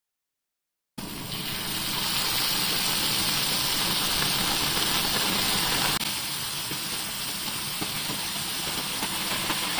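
Mushroom sauce sizzling on a hot cast-iron sizzler plate as it is ladled on: a steady hiss that starts about a second in and eases slightly around six seconds in.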